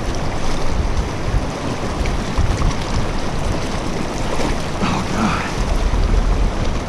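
Fast creek water rushing steadily, with wind buffeting the microphone.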